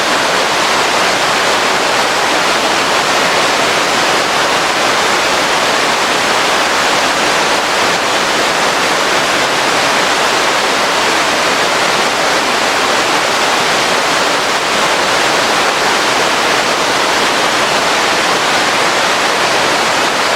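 Waterfall: steady, even rush of falling water.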